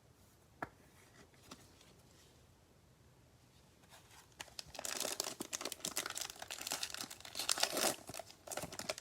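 Cellophane wrapper of a trading-card pack being torn open and crinkled by hand, starting about halfway through and getting louder toward the end.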